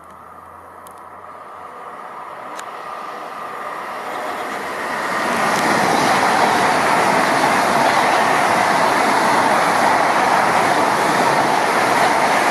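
ICE high-speed electric train approaching and running through at speed: a rushing noise that swells over the first five seconds, then holds steady and loud as the long train of carriages goes by.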